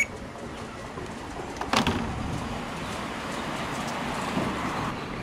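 Samsung 10 kg top-loading washing machine running: a single click about two seconds in, then the steady noise of the machine turning its tub, swelling a little. Its drive belt is slack and worn, which gives its noisy start to the spin.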